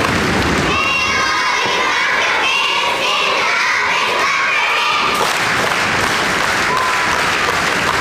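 A group of children shouting and cheering together in high voices, starting about a second in: a youth cheer squad and its crowd.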